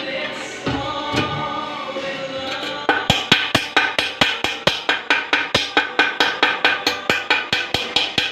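Background music: pitched, held sounds, then from about three seconds in a steady, wood-block-like beat of about four clicks a second.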